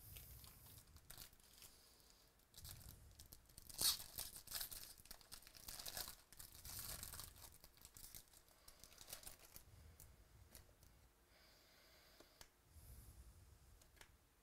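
Foil wrapper of a Bowman baseball card pack being torn open and crinkled by hand. There is a sharp rip about four seconds in, then a few seconds of crackling as the wrapper is pulled back.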